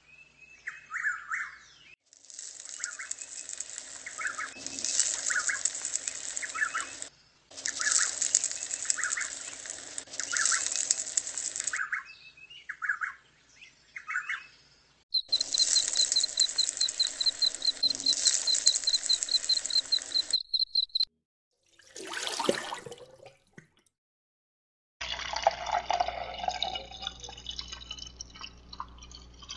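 Birds chirping over a steady hiss, in several abruptly cut stretches. Near the end, water trickles and splashes as it is poured from a small cup into a miniature mixer drum.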